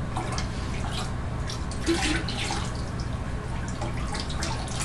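Liquid pottery glaze being poured over a pot, running off in uneven splashes and drips.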